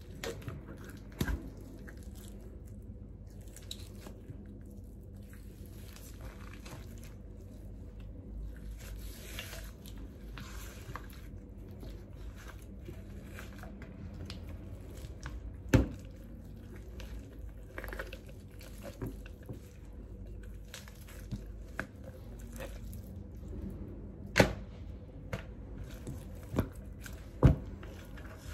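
Raw whole chicken being skinned by hand: wet, squishy peeling and tearing of the skin from the flesh, with scattered small clicks and several sharp knocks, the loudest about sixteen and twenty-four seconds in.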